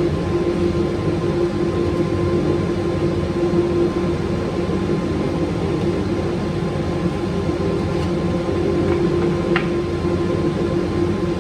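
Makita belt sander running steadily, a constant motor hum with a whine. A couple of light ticks come near the end.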